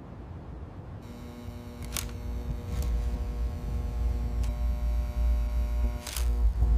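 A steady hum under a low rumble that grows louder, with a few sharp clicks about two, three, four and a half and six seconds in.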